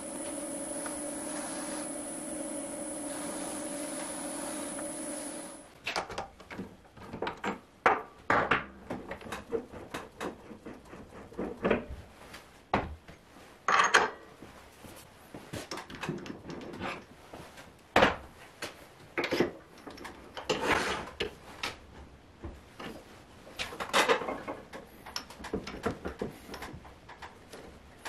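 Variable-speed midi wood lathe running steadily with a high electronic whine, then switched off about six seconds in. After that come irregular knocks and clatters of metal and wood as the chuck and workpiece are handled and changed on the headstock spindle.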